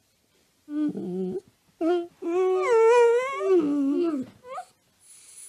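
A dachshund howling or 'singing' in several drawn-out, wavering notes, the longest held for about two seconds, ending with a short rising whine.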